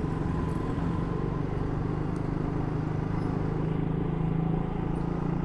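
Motorcycle engine running steadily at an even cruising speed, heard from the rider's seat with a hum of traffic around it.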